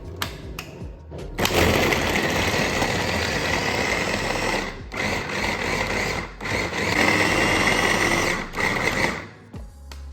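Small electric motor of a kitchen appliance running at high speed. It starts about a second and a half in, stops briefly three times and cuts off near the end.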